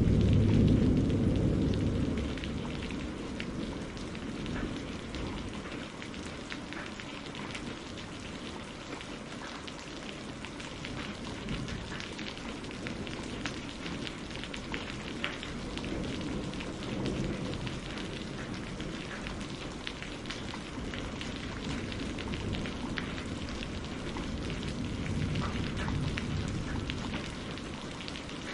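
Steady rain with many small drop ticks, and thunder rolling: a loud low rumble dying away over the first couple of seconds, then fainter distant rumbles about halfway through and near the end.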